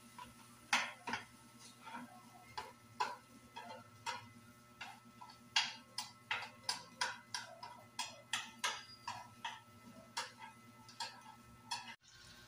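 A metal spatula clicking and scraping against a grill pan as eggs cook. The clicks are sharp and irregular, a few each second, and stop just before the end.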